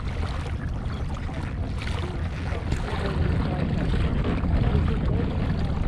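Wind buffeting the camera microphone in a steady low rumble, with ocean water lapping around a kayak; it grows a little louder about three seconds in.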